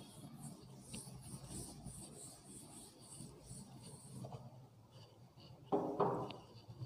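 A chalkboard duster scrubbing across a chalkboard, wiping it clean with quick back-and-forth strokes, about three a second, that stop after about four seconds. Near the end comes a brief sound of a man's voice.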